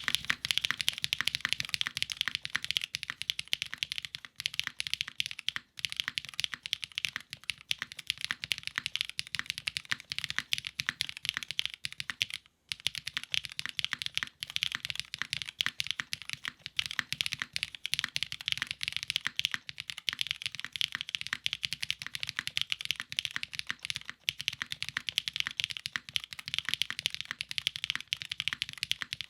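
Continuous fast typing on a Singa x TGR Unikorn R2.2 custom mechanical keyboard: vintage Cherry MX switches with Kailh stems, lubed and filmed, with GMK keycaps on a full aluminium plate in a gummy O-ring mount. The keystrokes run densely with a few short breaks.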